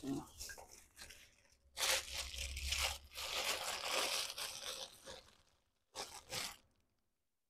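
Clear plastic parts bag crinkling and rustling as gloved hands handle it and rummage through it, in several irregular bursts that die away near the end.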